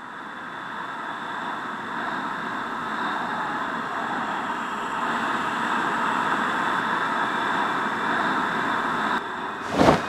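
A noisy horror-film sound-design drone that swells steadily louder, ending in a sharp, loud hit just before the end.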